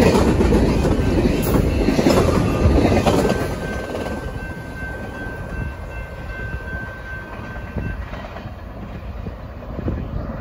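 Double-stack freight container cars rumbling and clattering past close by on the rails, then the sound drops off about three seconds in as the train moves away. A faint steady high whine is heard for a few seconds as it fades.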